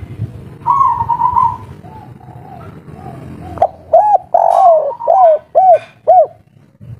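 Spotted dove (tekukur) cooing: a burbling coo about a second in, a few softer notes, then a run of five loud, arched coo notes in the second half.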